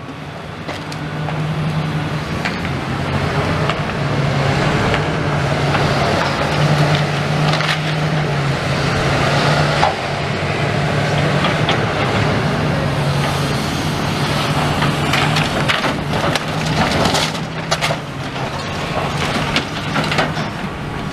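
Demolition excavator working a pile of brick rubble: its engine drones steadily under continuous crunching and cracking as debris is grabbed and crushed.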